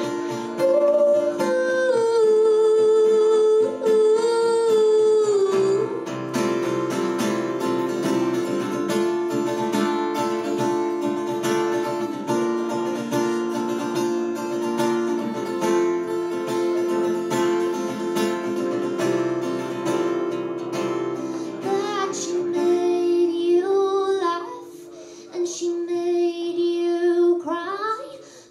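A woman singing to her own strummed acoustic guitar. About six seconds in the voice drops out for a guitar-only strummed passage, and the singing comes back in near the end.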